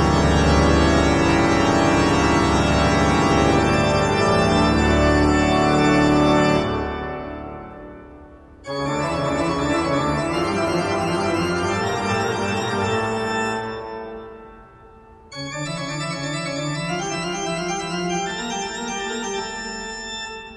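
Organ music: long sustained chords that fade away, with new chords starting suddenly about nine and fifteen seconds in.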